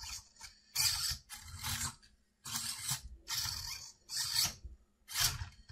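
Suspension servos of a Redcat SixtyFour Impala RC lowrider whirring in about seven short bursts as they raise and drop the body.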